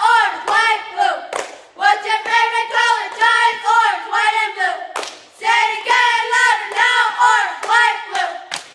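Cheerleaders chanting a cheer in unison, "What's your favorite color, Giants? Orange, White, and Blue," in rhythmic shouted phrases, with sharp claps between the lines, about a second and a half in and again about five seconds in.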